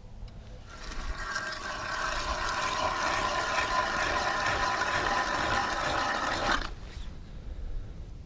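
Ice auger boring a hole through river ice: a steady grinding with a held whine, which stops abruptly.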